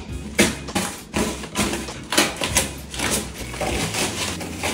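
Masking tape and plastic sheeting being peeled off painted cabinet frames: a run of irregular ripping and crinkling rustles.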